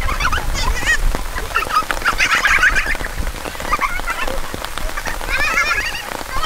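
Several women squealing and laughing in high voices at once, in a handful of bursts of excited cries.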